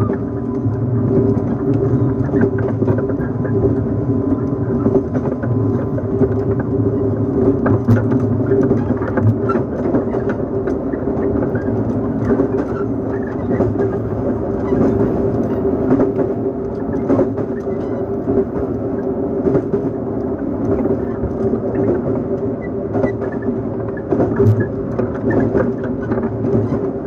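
JNR 115 series 1000-subseries train's MT54 traction motors humming at a steady pitch as the train runs at an even speed, heard inside the motor car. Under the hum is a dense rumble of wheels on rail, with occasional sharp clicks.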